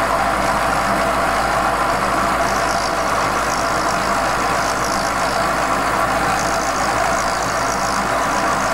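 Vertical milling machine running steadily, its end mill cutting a small brass pump valve.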